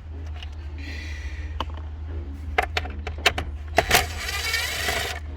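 Hand tools and plastic dashboard trim clicking and rattling while 7 mm screws are backed out of the centre dash panel: a series of sharp clicks and knocks with short scraping rustles, over a steady low hum.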